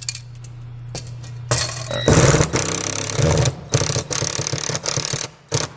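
Cordless drill with a Phillips bit driving wood screws through an aluminum bracket into a wall stud. A short burst about a second and a half in, then several longer runs with brief pauses between them, stopping near the end.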